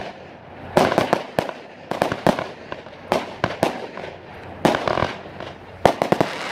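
Fireworks going off in quick succession: a string of sharp bangs at uneven intervals, some coming in quick pairs or triples, as comets rise and burst overhead.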